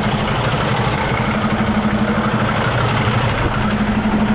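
Semi truck's diesel engine idling steadily, with a fast, even pulse.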